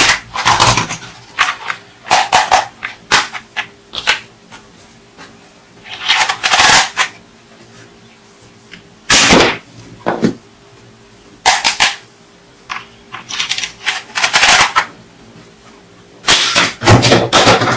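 Hard plastic toy guns and accessories clattering as they are handled and shifted on a tabletop: irregular bursts of clacks and rattles, several of them loud, with quiet gaps between.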